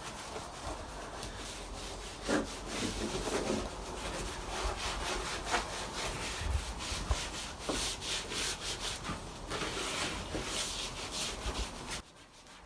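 Shop paper towel scrubbing across the van's bare floor in quick, irregular rubbing strokes, wiping off grime and leftover subfloor adhesive. The scrubbing stops abruptly near the end.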